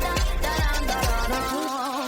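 Pop song between sung lines: a deep kick drum beats about twice a second under held synth chords. The drums and bass drop out about a second and a half in, leaving only the chords.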